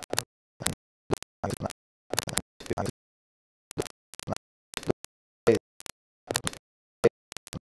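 Choppy, broken-up audio: brief fragments of sound, about two a second, each cut off abruptly by dead silence, as in a recording that keeps dropping out.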